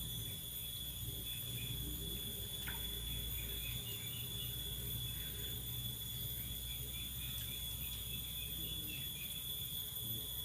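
Insects, crickets or the like, trilling steadily in several high tones at once, with faint short chirps scattered through.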